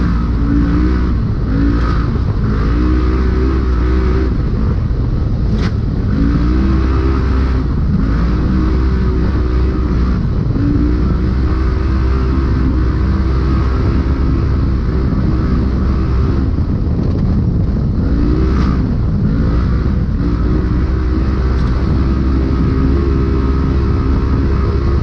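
Polaris RZR UTV engine running hard, heard from inside the car: the revs climb quickly and then hold at a steady pitch, dropping and climbing again several times as the throttle is lifted and reapplied. Under it there is steady road and tyre noise, with a couple of sharp knocks.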